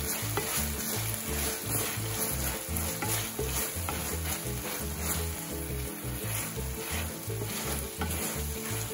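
Shiitake mushrooms in hoisin glaze sizzling in a cast-iron skillet while a wooden spatula stirs them, the glaze cooking down on the pan's remaining heat after the burner has been switched off.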